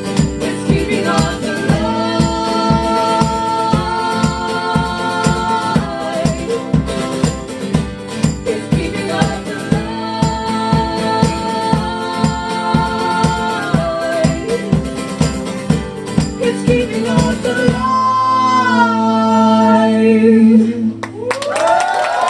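Live folk band music: singing over acoustic instruments with a steady beat. About eighteen seconds in, the beat stops and the final sung note is held for a few seconds before cutting off.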